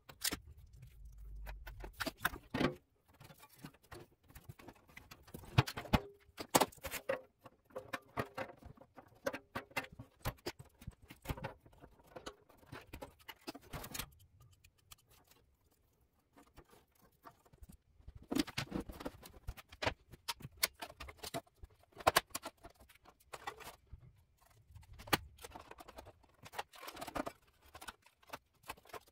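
Sped-up workshop handling sounds at eight times speed: quick clicks, scrapes and metal clatter of tools, screws and sheet-metal parts as a rusty Olivetti M240 computer is taken apart, with a quieter stretch about halfway through.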